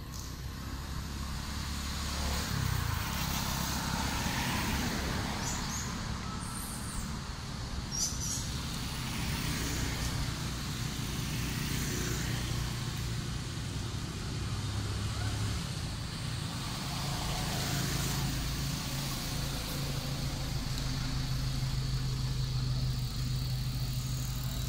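Road traffic: motor vehicle engines running with a steady low hum, which grows stronger in the second half.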